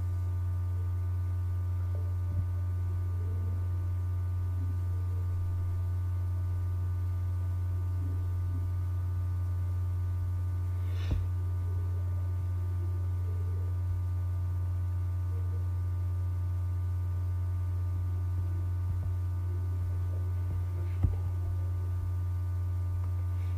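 Steady low electrical hum with faint higher buzzing tones above it, from the recording setup, broken by a few soft clicks, the clearest about halfway through.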